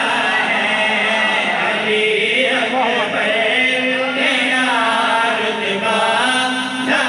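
Man chanting a devotional Urdu poem in a sung style into a microphone, holding long, wavering notes.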